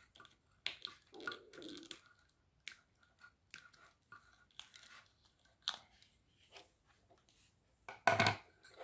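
Faint handling noises: scattered clicks, taps and crinkles of wires and a pair of pliers being worked inside a touch lamp's metal base, with a louder thump about eight seconds in.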